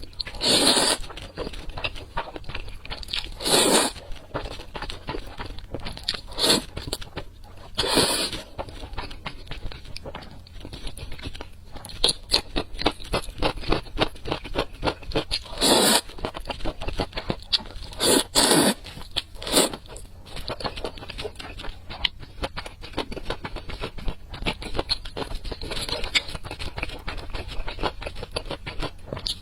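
Close-miked eating: steady crunching, crackling and chewing of crisp food, with several louder crunches spread through.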